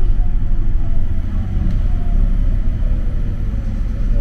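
Mitsubishi Crystal Mover light-rail car running along its guideway: a steady, loud low rumble from its rubber tyres and running gear. A faint motor whine slides slightly lower toward the end.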